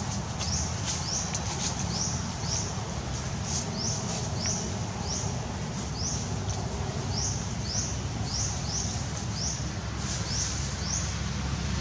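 Forest ambience: a short, high chirp that rises in pitch, repeated one to three times a second from an unseen animal, over a steady low rumble.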